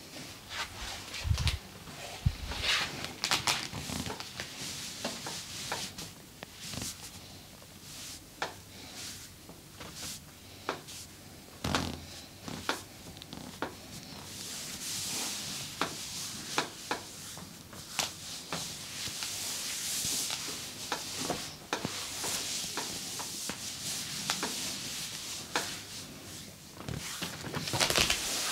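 Hands massaging bare skin: a scattered run of sharp smacks and pats, and from about halfway through a steady rubbing hiss of palms sliding over skin, still dotted with smacks.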